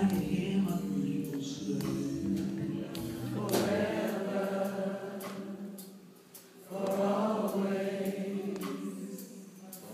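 Live slow R&B ballad sung by many voices together in long held phrases. Bass and keyboards play under the first few seconds, then drop away and leave the voices nearly alone. The voices take up new phrases about halfway through and again near the end.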